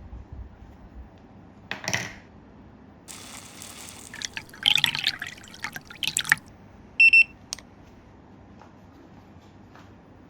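Water splashing and dripping in short irregular bursts, typical of hot water being poured into a coffee brewer. About seven seconds in comes a short electronic beep, like a button press on the brewer.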